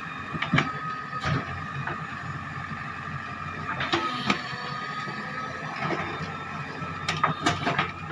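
Backhoe loader's engine and hydraulics running steadily with a whine, with a few irregular sharp knocks and clanks scattered through; the breaker is not hammering.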